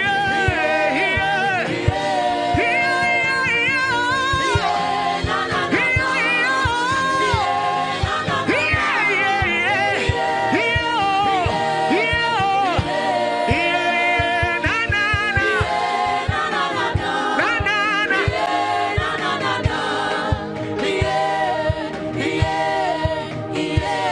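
Gospel worship music: voices singing long, sliding melodic lines over sustained backing chords and soft low drum hits.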